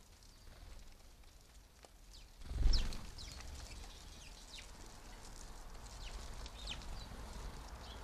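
House sparrows chirping in short, high, falling chirps from about three seconds in. A low thud comes just before them, about two and a half seconds in, and is the loudest sound.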